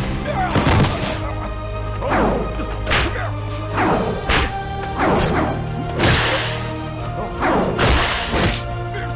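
Staged fight sound effects: about a dozen sharp punch and body-hit impacts with swishes, roughly one a second, over sustained background music.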